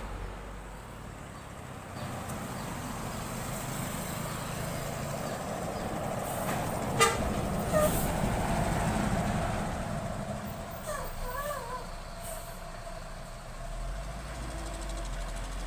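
A bus passing on the road: its engine and tyre noise swells, peaks and fades, with a sharp click in the middle and a short wavering horn sound soon after it passes.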